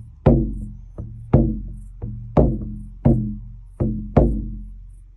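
An 18-inch shamanic frame drum struck with a beater, about eight strikes at an uneven rhythm, some louder than others. Each hit gives a deep boom that rings on under the next, and the last rings out over the final second.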